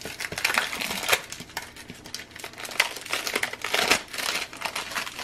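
Clear plastic bag crinkling and rustling as hands work it open, in irregular crackles with a few sharper snaps.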